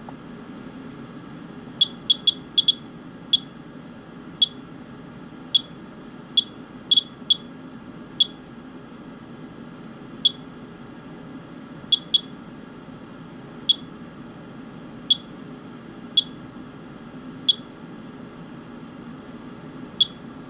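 Radiation counter beeping once per detected count: about twenty short, high beeps at random, irregular intervals, roughly one a second, over a steady low hum. The counter is logging a rain sample that the owner takes to be radioactive, at a rate he reads as 50 to 100 counts a minute.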